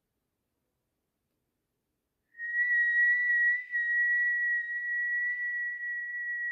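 A single high whistled tone that starts suddenly about two seconds in and is then held steady, with a slight waver in pitch.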